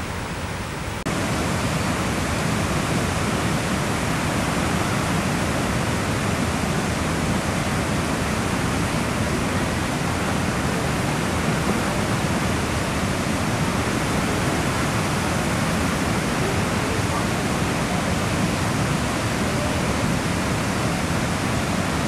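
Large waterfall and river rapids running high with muddy floodwater, a steady rushing of water over rocks. It gets louder about a second in.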